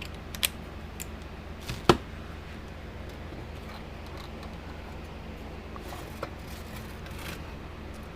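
A few sharp clicks and knocks of hand tools and parts being handled on a workbench, the loudest just under two seconds in, over a steady low electrical hum.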